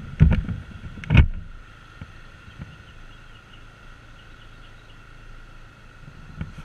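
Scooter engine idling steadily while stopped, with two loud dull thumps in the first second and a half.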